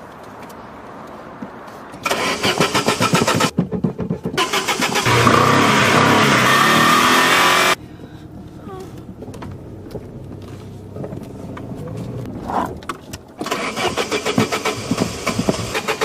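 A car's starter cranking the engine in repeated attempts: rapid rhythmic cranking about two seconds in, a longer, louder attempt from about four seconds that cuts off suddenly, then cranking again near the end. The car is failing to start.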